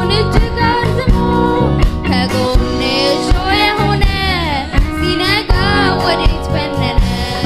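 Worship song: a voice singing long, gliding phrases over a band with bass and a steady drum beat.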